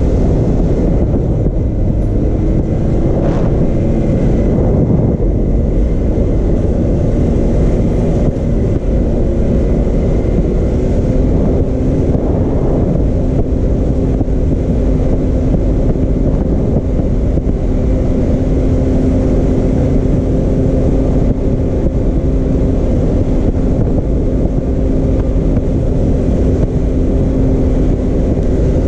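Can-Am Maverick X3 Turbo RR side-by-side's turbocharged three-cylinder engine running while driving a dirt trail, under a heavy low rumble from the ride. The engine note varies at first, then holds a steady pitch from about ten seconds in.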